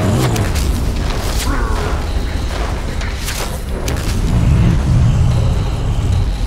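Animated-film sound effects of giant monsters: deep rumbling booms with sharp whooshing hits, mixed under dramatic background music. The rumble swells around the middle of the stretch.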